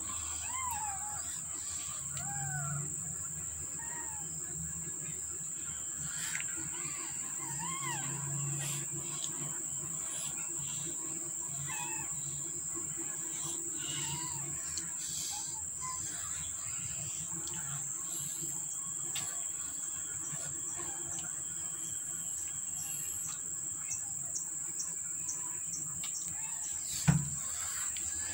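A very young kitten mewing again and again in short cries that rise and fall in pitch, over a steady high-pitched background drone. A single sharp knock near the end.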